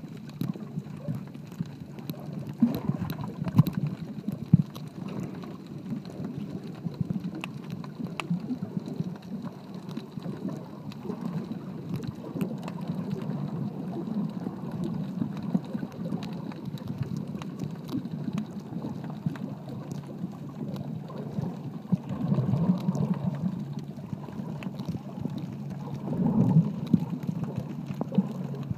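Muffled underwater ambience picked up by a camera held beneath the surface: a steady low rush of water with many scattered crackles and ticks. It swells louder twice near the end.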